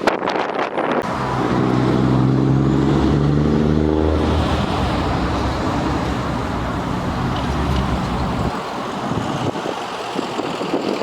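A motor vehicle's engine hum, coming in about a second in and dying away after about eight seconds, over steady wind noise.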